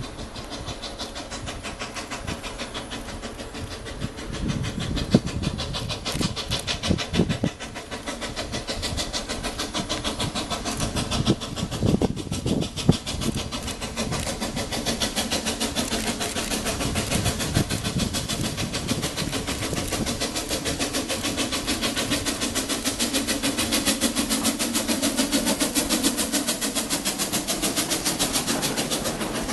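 Steam locomotive working past with its train: a rapid, even beat of exhaust and wheels that grows louder as it nears, with the rumble and clatter of freight cars and a coach rolling by near the end.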